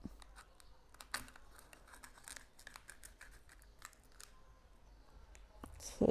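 A knife tip scratching and prying at the plastic film seal on a small cup, with scattered light clicks and crinkling. Near the end the film is peeled back with a louder crackle.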